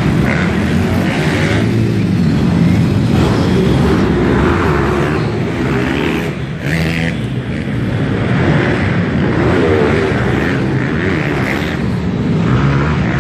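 Several pitbike engines revving up and down as the bikes race around an indoor dirt track, the sound carrying through a large hall.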